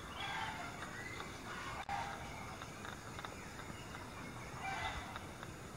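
Outdoor ambience with a few faint bird calls, short and spaced out, and a single sharp click about two seconds in.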